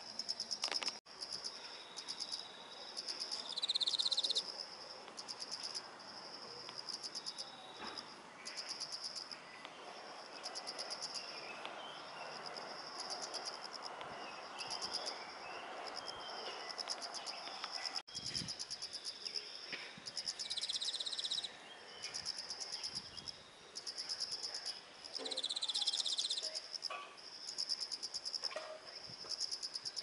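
Chorus of autumn crickets chirping: one sings trills of rapid pulses about a second long, over and over with short gaps, and a louder, slightly lower chirp cuts in a few times.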